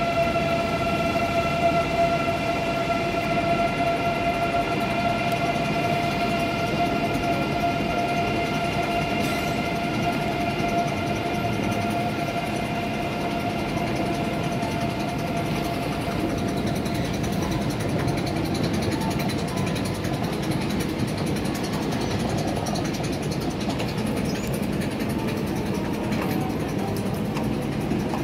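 Railway station ambience: a steady, high-pitched electrical whine in several tones fades away about halfway through, over a continuous hum and murmur of the concourse.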